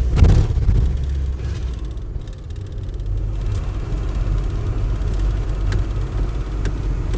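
Engine and road rumble inside the cab of an Iveco Daily truck on the move, with a brief louder bump right at the start. The rumble eases off for a moment around two seconds in, then steadies again.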